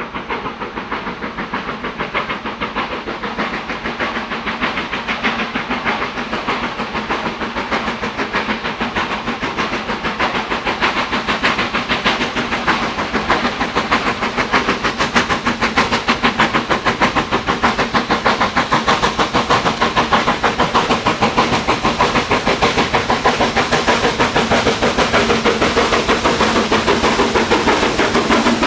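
Steam locomotive working hard, its rapid, even exhaust beats growing steadily louder as it approaches.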